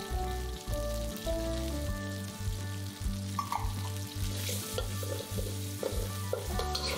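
Diced raw chicken frying in hot chilli paste in a wok, with a steady sizzle. A metal wok spatula scrapes and knocks against the wok from about halfway through as the chicken is stirred.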